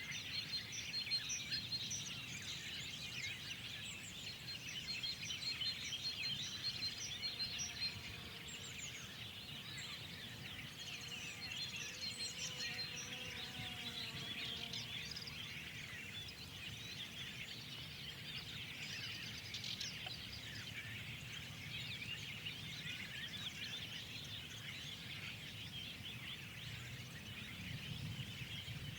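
A chorus of many songbirds chirping over each other. For about the first dozen seconds one bird repeats a short high note at an even pace, about twice a second.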